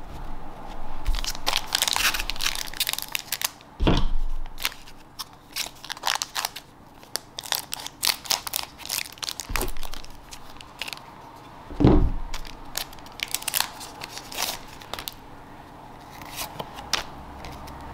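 Foil booster pack crinkling and being snipped open with scissors, with trading cards sliding and shuffling in the hands. Two louder knocks stand out, about four and twelve seconds in.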